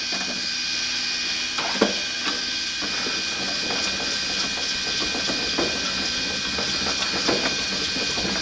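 Hornady hand-cranked case trimmer cutting a 5.56 brass case to length: the cutter chatters against the case mouth as the crank turns, a sign that it is still cutting. A single sharp knock comes about two seconds in.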